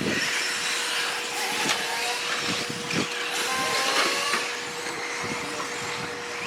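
Electric short course RC truck racing: the motor and drivetrain whine, rising and falling in pitch with the throttle, over tyre and track noise, with a few sharp knocks from bumps.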